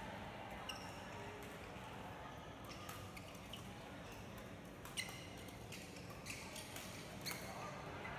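Badminton racquets striking a shuttlecock in a fast doubles rally: a string of short, sharp hits at irregular intervals, the loudest about five seconds in, over the steady background of a large sports hall.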